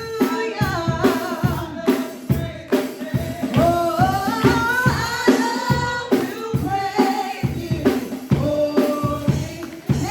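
Church worship music: voices singing over a drum kit and tambourine with a steady beat.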